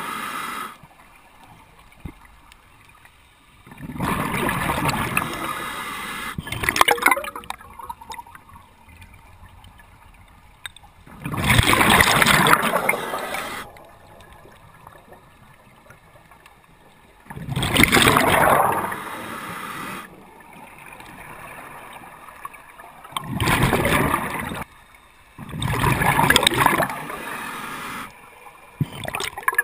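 Scuba regulator exhaust bubbles heard underwater: a gurgling rush of bubbles lasting a second or two, coming about every six seconds with the diver's breathing, about five times.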